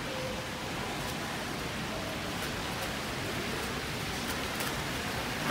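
Steady splashing hiss of water spilling down a stepped, tiled indoor fountain cascade, with the murmur of a large indoor hall behind it.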